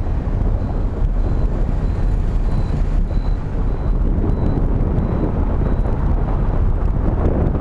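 Wind buffeting the microphone of a vehicle-mounted GoPro moving through streets, a loud steady low rumble with road noise under it. A faint high-pitched beep pulses about every two-thirds of a second for most of it.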